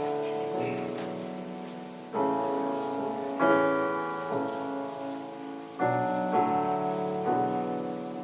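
Piano playing slow chords, each struck and left to ring and fade away: the quiet introduction to a ballad before the singing comes in.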